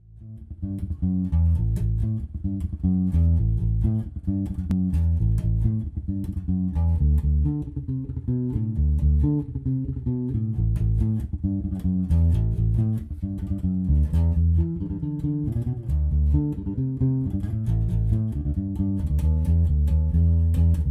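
Five-string Tensor electric bass with Lace Alumitone pickups playing a riff of plucked notes on the neck pickup alone with the tone control rolled all the way down: a bassy, muted, syrupy sound.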